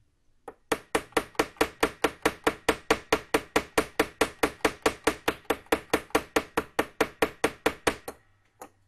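Small hammer peening a brass plug into a clock's mainspring barrel: a steady run of light, quick taps, about six a second, after a single first tap, with one more tap near the end.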